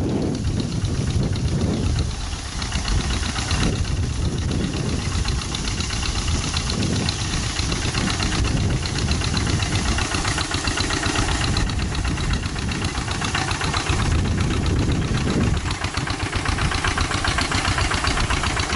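Two-wheel hand tractor's single-cylinder diesel engine running steadily with a rapid, even knocking beat while it pulls a plough through dry field soil.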